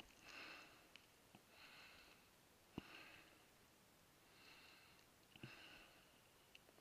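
Faint, steady breathing of a climber descending, a breath about every second or so, with a few sharp clicks and knocks of boots and stones on loose scree; the loudest knock comes about three seconds in.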